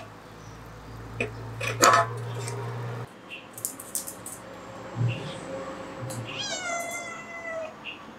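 A cat meowing: one long, gently falling call about six seconds in. Before it there are a few short knocks and a low hum that cuts off about three seconds in.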